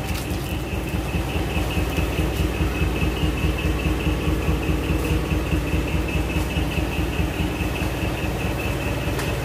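Mini dump truck's engine idling steadily, with a steady high tone pulsing evenly over the low rumble.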